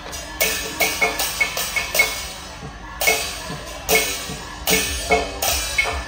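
Teochew big gong-and-drum ensemble playing: cymbals and gongs struck several times a second in an uneven rhythm, each strike ringing on, with a brief let-up about halfway through.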